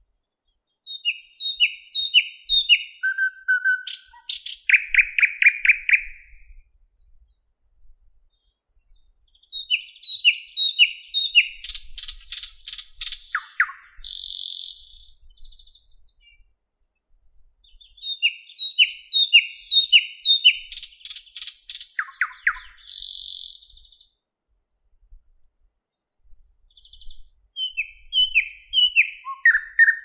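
Thrush nightingale singing four song phrases a few seconds apart. Each phrase is a run of repeated downward-sliding whistles followed by a fast rattle of dry clicks.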